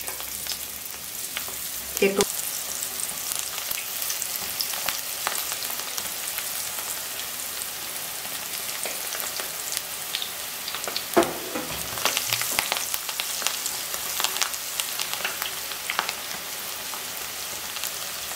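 Cornflour-and-curd-coated soya chunks deep-frying in hot oil: a steady sizzle full of fine crackles, with fresh chunks being dropped in one by one. A couple of louder knocks come about two seconds in and about eleven seconds in.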